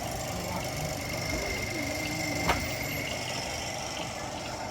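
A vehicle engine idling steadily, with one sharp click or knock about halfway through.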